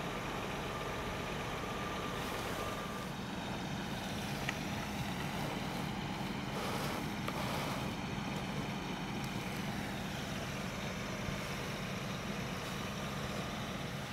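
Engines of emergency vehicles idling, heard as a steady low hum, with a thin steady whine over it for the first three seconds or so.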